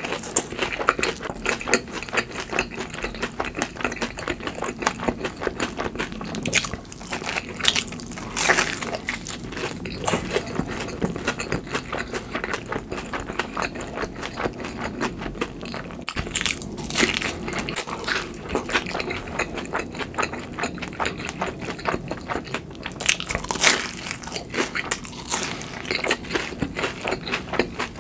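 Close-miked chewing of cheese pizza topped with a crispy fried hash brown: continuous crunching and wet chewing, with a few louder crunchy bites along the way.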